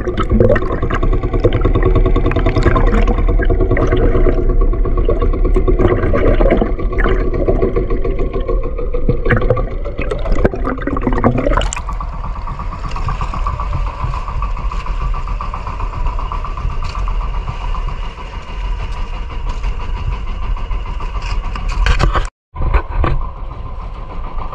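Fishing boat's engine running steadily, with a brief sudden dropout near the end.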